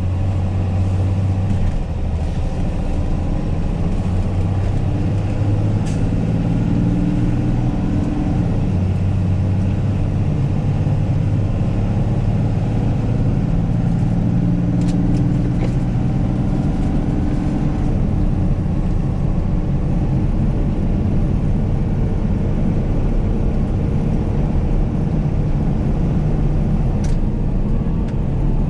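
Diesel engine and road noise inside the cab of a Peterbilt rollback tow truck driving at highway speed. The engine's drone steps up and down in pitch every few seconds as the driver works through the gears.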